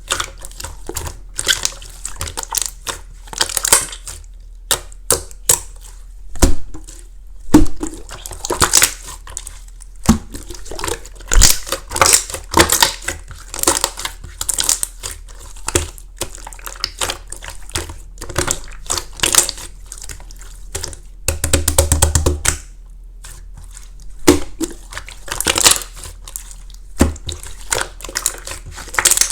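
Clear flake slime being squeezed, poked and pressed by hand: an uneven run of wet clicks and pops, with a dense burst of rapid crackling about two-thirds through.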